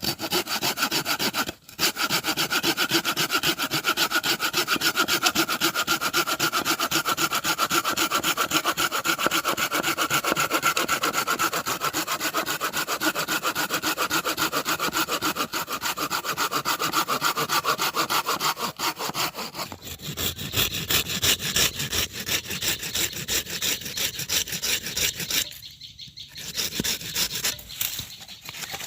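Small folding hand saw cutting with quick, even back-and-forth strokes. There is a brief pause about a second and a half in, the strokes change in sound partway through, and there is another short stop near the end.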